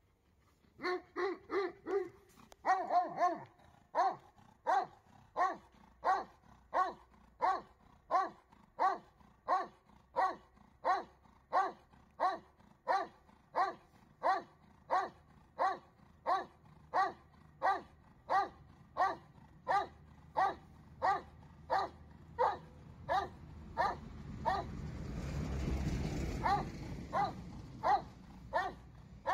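Doberman barking steadily at a helper hidden in a protection blind, about one and a half barks a second: the hold-and-bark of an IGP protection exercise. A low rumble swells and fades near the end.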